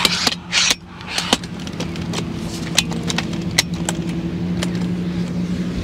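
A collapsible telescoping ladder being pulled out section by section, its sections clicking sharply as they lock into place, several separate clicks over a few seconds. A brief rustle comes near the start, and a steady low hum runs underneath.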